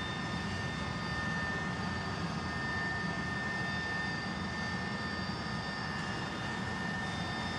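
Steady drone of an aircraft's engines heard from inside the cabin, a constant rumble with a thin steady high-pitched whine over it.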